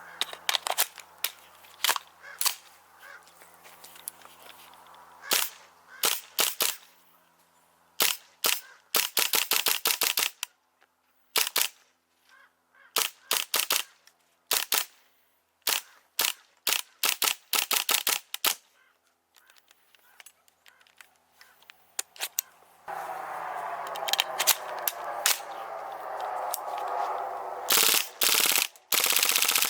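Airsoft guns firing: single shots and short rapid bursts with gaps between, then about two-thirds of the way in a long, fast, even full-auto string that runs to the end and is the loudest part.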